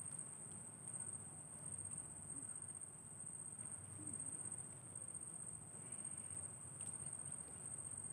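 Insects in the mangroves making a steady, unbroken high-pitched trill, over a faint low rumble.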